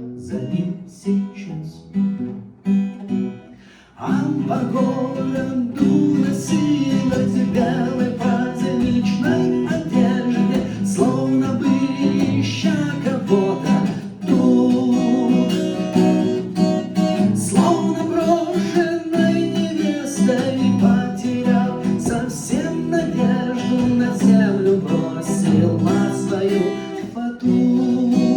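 Acoustic guitar strummed and picked, playing an instrumental passage of a song. It is sparse for the first few seconds, then fuller and louder from about four seconds in.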